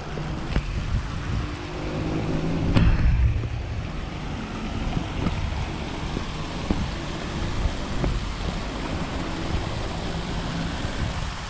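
Steady rumble and wind noise of a moving vehicle, with a few scattered knocks and a louder swell about three seconds in.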